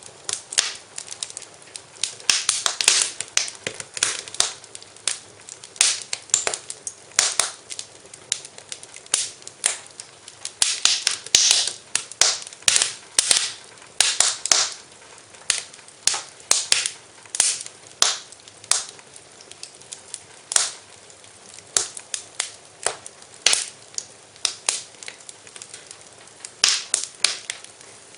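Wood fire crackling in a fireplace: irregular sharp pops and snaps, several a second, over a faint steady hiss.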